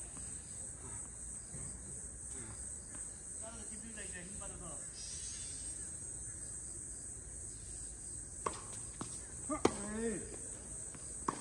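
Steady high insect chirring throughout. Near the end come a few sharp knocks, tennis balls struck by rackets and bouncing on the court during a rally.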